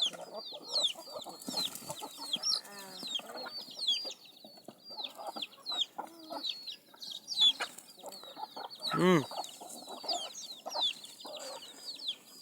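A crowded flock of chickens calling: many short, high, falling peeps overlapping all through, over lower clucking. One louder drawn-out squawk comes about nine seconds in.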